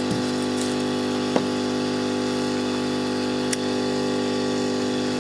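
Hot air rework station's blower humming steadily, running on with the heater switched off to cool the gun, with air hiss over the hum. A single sharp click about a second and a half in and another about three and a half seconds in.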